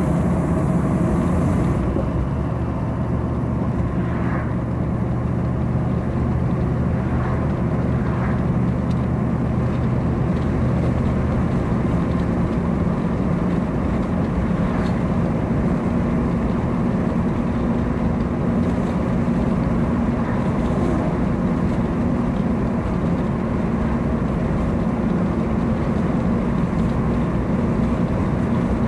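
Steady road noise inside a moving car's cabin: tyres on the pavement with a low engine hum.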